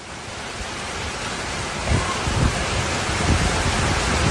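Fast-moving floodwater rushing down a street, a loud steady rush that builds over the first two seconds, with a few dull low thumps about halfway through.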